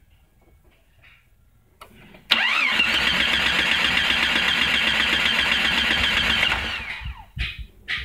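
1996 Jeep Grand Cherokee's 4.0-litre straight-six being cranked by the starter for about four seconds after a click, and not catching. It cranks but won't start because the computer does not power the ASD relay (coil and injectors) during cranking, which has the hallmarks of a tired PCM.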